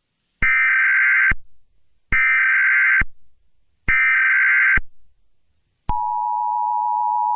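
Emergency Alert System SAME header: three digital data bursts, each just under a second long with about a second between them. About six seconds in, the steady two-tone EAS attention signal (853 and 960 Hz together) begins, and it cuts off just at the end.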